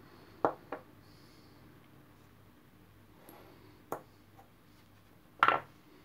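Small metal bottom bracket parts clinking against each other and the wooden table as they are handled: two quick clicks about half a second in, a single click near four seconds, and a louder double clack near the end.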